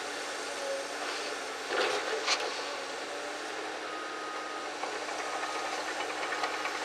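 Komatsu PC200LC hydraulic excavator's diesel engine running steadily as the boom and bucket move, with two sharp knocks about half a second apart around two seconds in and a faint rapid ticking setting in near the end.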